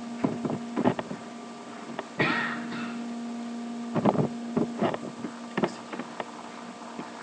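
Computer keyboard keys clicking in short clusters of keystrokes over a steady low electrical hum, with a brief hiss about two seconds in.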